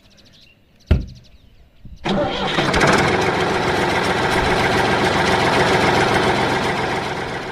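A single light wooden knock about a second in. About two seconds in, a tractor engine starts and then runs loudly and steadily, stopping near the end.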